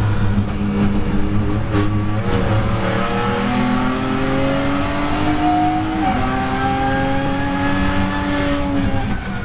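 BMW M2 Competition's twin-turbo straight-six heard from inside the cabin, pulling hard out of a corner with its pitch rising. It upshifts about six seconds in, with a sudden drop in pitch, and keeps climbing until it lifts near the end.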